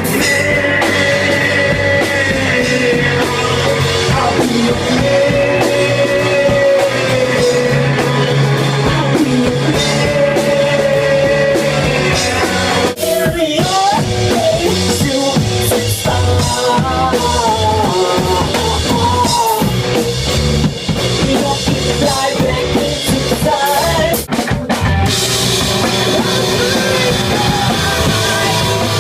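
A rock band playing live, led by a drum kit, with melodic lines wandering over a full band; it drops out for a moment about halfway through and again near the end.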